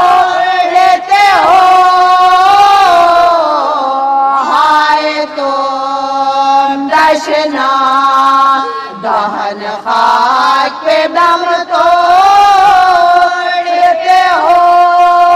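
A woman chanting an Urdu marsiya (elegy) in long, wavering held notes, her voice sliding up and down between phrases.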